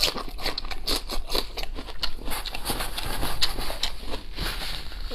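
A man chewing meat with his mouth open, a dense, irregular run of wet smacks and clicks.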